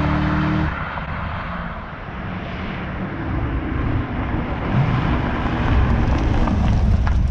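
Corvette C6 Z06's 7.0-litre V8 running on the move, with a dense rush of wind and road noise that grows louder over the second half.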